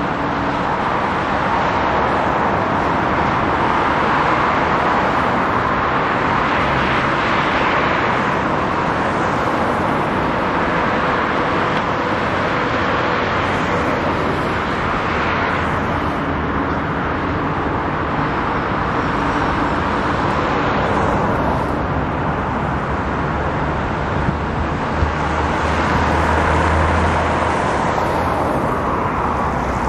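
Steady city road traffic: tyre and engine noise of cars passing, swelling and easing every several seconds.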